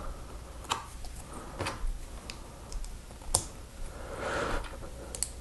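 Small plastic Lego pieces being handled and clicked together: a handful of sharp, separate clicks, with a short rustle of pieces about four seconds in.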